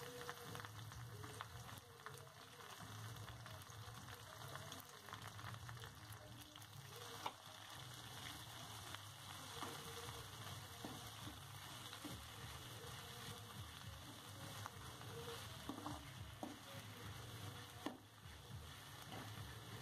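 Crushed shallots and chopped onion frying gently in oil in a metal kadai, a faint steady sizzle. A steel spoon stirs and scrapes them, clicking sharply against the pan a few times.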